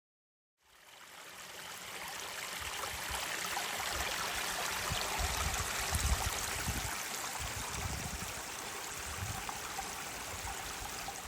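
A stream running steadily, with a continuous rush of flowing water that fades in about half a second in.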